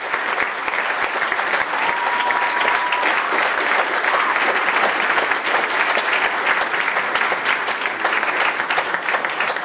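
Crowd applauding steadily, many hands clapping.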